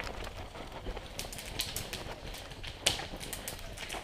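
Irregular sharp clicks and snaps over a faint outdoor hiss, the loudest about three seconds in.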